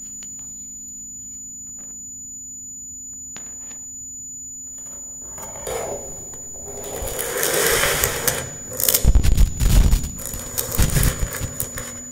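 Electroacoustic free improvisation on tabletop guitar and electronics. A thin, steady high tone and a low hum hold for about five seconds, then a hiss swells up and gives way to loud, crackling, rumbling noise bursts about nine seconds in.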